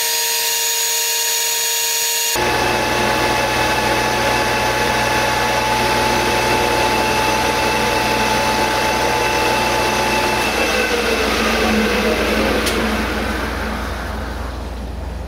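Metal lathe turning a 2.5-inch bar of 1144 stressproof steel with an insert tool: steady machine whine with the noise of the cut. The sound changes abruptly about two seconds in and grows quieter near the end as the tool backs off the work.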